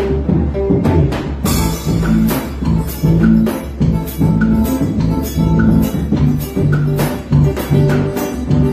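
Forró band playing an instrumental passage, with bass notes, guitar and percussion keeping a steady beat.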